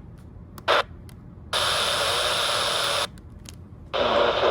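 Weather radio receiver static. The noisy broadcast cuts out, there is a brief crackle, then about a second and a half of steady loud hiss that stops abruptly. The noisy broadcast comes back near the end.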